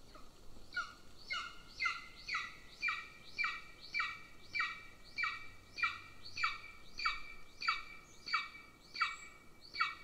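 Golden eagle giving a long series of short yelps, about two a second, each note dropping in pitch.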